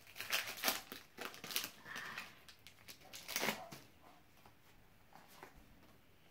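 Foil Pokémon Team Up booster pack wrapper crinkling and cards rustling as they are handled, in a quick run of crackles for about four seconds, then fading to faint handling.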